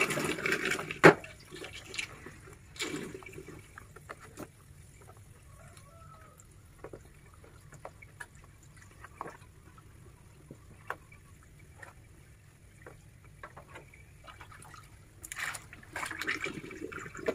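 Water from a hose running into a stainless-steel sink while fish are rinsed in a plastic tub, splashing at the start and again near the end. Scattered knocks and clicks in between, the loudest a sharp knock about a second in.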